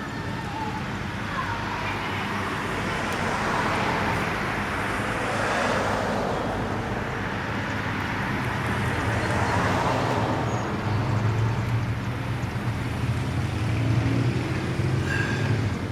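Road traffic going past, with two vehicles swelling and fading about five and ten seconds in, then a vehicle engine's low steady rumble from about eleven seconds on.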